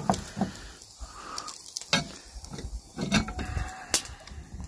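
Hot cast-iron pie iron sizzling as its two halves are pried open on a grilled cheese sandwich, with several sharp metal clicks and clanks from the iron and its handles, the loudest near the end.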